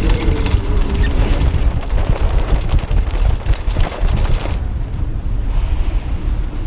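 Strong wind rushing over the microphone while a heavy-weather jib flogs as it is hoisted, with rapid irregular cracks of loose sailcloth. About four and a half seconds in, the cracking dies away as the sail fills, leaving a steady wind rush.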